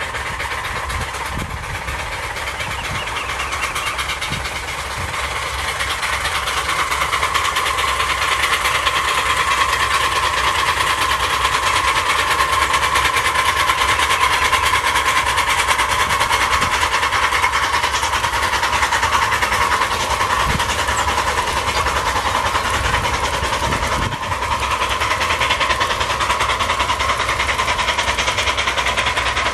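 Ride-on miniature Hudson and Northern locomotives hauling a freight train past on the track. The steady running sound of the train grows louder over the first eight seconds or so as it approaches, then holds steady with a brief dip near the end.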